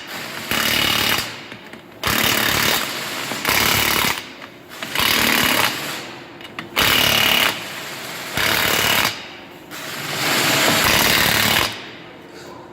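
Impact wrench running lug nuts onto a skid steer wheel: about seven loud hammering bursts, each about a second long, with short pauses between them as it moves from nut to nut.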